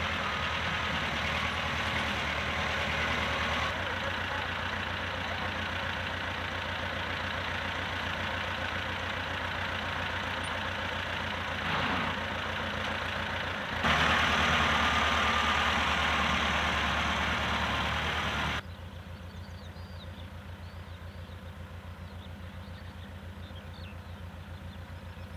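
Tractor engine running steadily with a low, even pulse, getting abruptly louder or quieter three times and quieter for the last several seconds.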